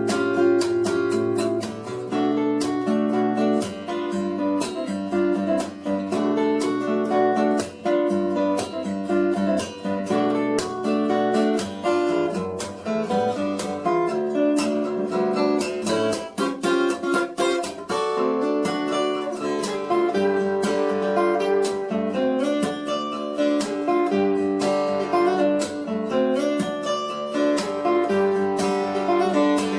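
Background music: acoustic guitar, plucked and strummed at a steady pace.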